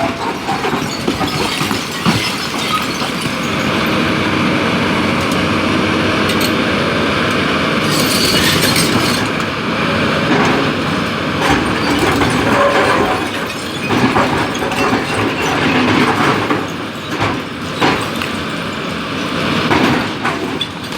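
Tata Hitachi EX200 LC hydraulic excavator working rock: its diesel engine runs steadily under load while rock and the steel bucket clatter and scrape, with several sharp knocks.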